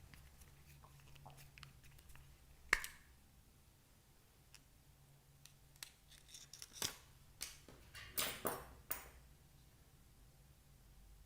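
Small handling sounds: one sharp click a little under three seconds in, then a run of clicks and short crackles between about six and nine seconds, over a quiet room.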